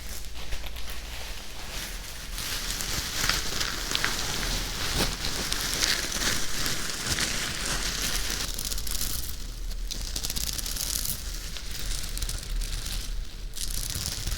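Close-miked scratching and crackling: a dense, irregular crackle with a few sharper clicks, swelling and easing in loudness.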